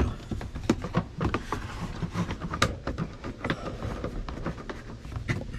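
Irregular clicks, taps and rustling of hands working an antenna cable through behind a pickup's dashboard, with a few sharper knocks.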